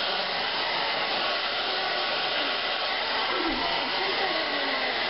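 Hand-held blow dryer running steadily, its air stream blowing through hair wound on a round brush.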